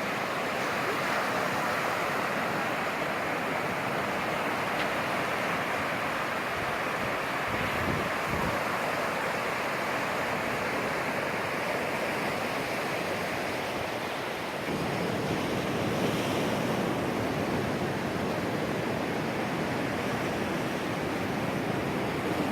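Baltic Sea surf washing steadily onto the beach, with wind rumbling on the microphone.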